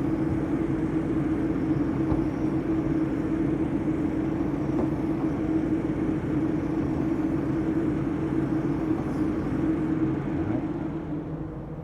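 Car running with the A/C on full and the blower fan on high, heard at the open hood by the cowl air inlet: a steady hum with one strong held tone. The sound drops somewhat near the end.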